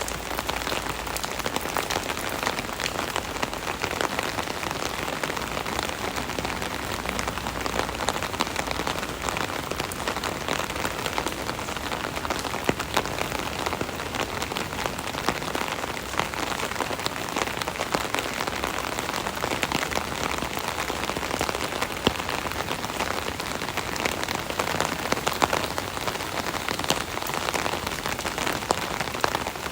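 Steady rain pattering on an umbrella canopy overhead, a dense hiss of many small drop taps with no let-up.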